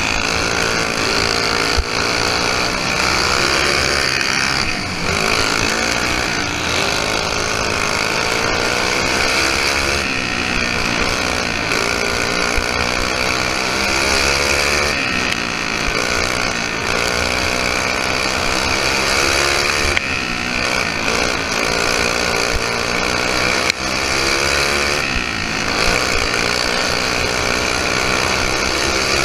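Briggs & Stratton flathead engine of a dirt-track racing kart at full throttle, heard from on board. Its pitch rises along each straight and drops into each turn, repeatedly.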